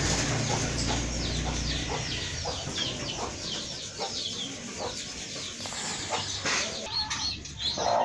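A flock of chickens calling: many short, high, falling peeps, several a second, with some clucking. A low rumble runs under the first two seconds.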